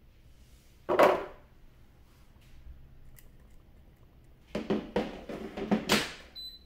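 Diced potatoes tipped into a non-stick air fryer basket with a short clatter about a second in. Near the end comes a run of knocks and scrapes as the basket is handled and pushed into the air fryer, then a single high electronic beep from its control panel.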